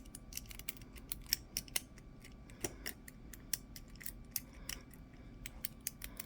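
Quick, irregular metallic clicks and ticks of a hook pick and tension wrench working the pin stack of a cheap Sepox brass padlock, with a few sharper clicks in the first three seconds.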